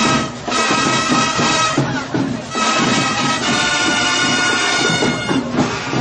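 School marching band playing, its wind instruments holding sustained chords. The sound dips briefly about two seconds in and again near the end.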